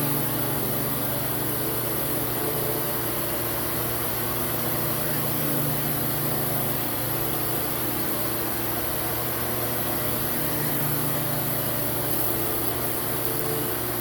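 Hoover Hushtone CH54113 upright vacuum cleaner running steadily on its low speed setting: an even motor hum with airflow hiss, not overly loud.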